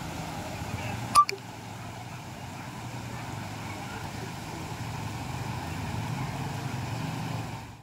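Floodwater rushing across a road and pouring over its broken edge: a steady rushing noise. A sharp click about a second in.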